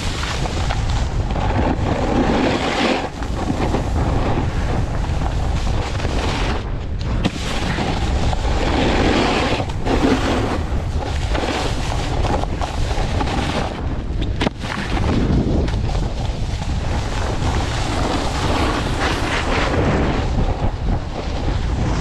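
Wind buffeting the microphone of a mouth-mounted action camera during a snowboard descent, a constant low rumble. Over it, the board's edges hiss and scrape on the packed snow, swelling louder every few seconds as the rider turns.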